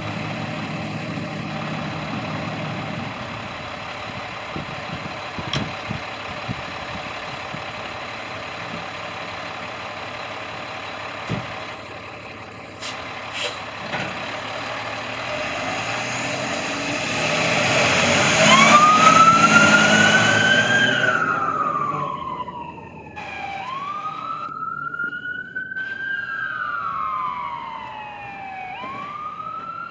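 Fire engine responding code 3: its engine runs steadily. About two-thirds through, a loud rush builds and the electronic siren comes on in a slow wail, rising quickly and falling slowly, repeating every four to five seconds.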